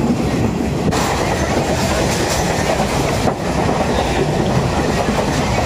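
Passenger train running along the track, heard from inside a carriage with the windows open: a steady, loud noise of wheels on rails with some clattering.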